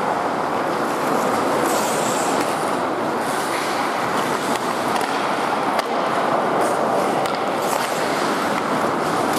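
Ice hockey skates gliding and scraping on the rink ice, with a few sharp clacks of sticks and puck, over a steady noise in the arena.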